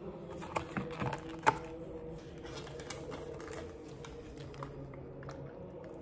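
Plastic cups and their snap-on lids handled on a wooden table: a few sharp clicks in the first second and a half, then lighter taps and ticks, over a faint steady hum.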